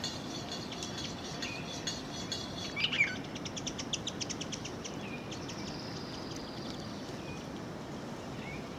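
Small birds chirping and calling. A short louder call comes about three seconds in, then a fast run of high chips, then a thin high note.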